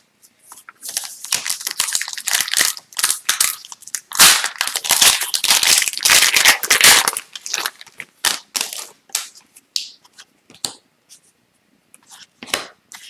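A foil trading-card pack wrapper being torn open and crinkled by hand, loudest in the middle, followed by a few light clicks and taps of cards being handled.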